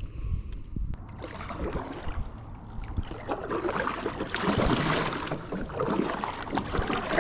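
Water splashing and sloshing around a kayak, with scattered small knocks. It swells and is loudest about four to five and a half seconds in.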